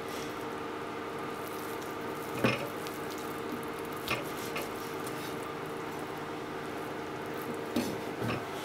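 Kitchen knife slicing through thick deep-fried tofu and knocking on a plastic cutting board: a few light knocks, the sharpest about two and a half seconds in. Near the end the knife is laid down on the board with two more knocks. A steady hum runs underneath.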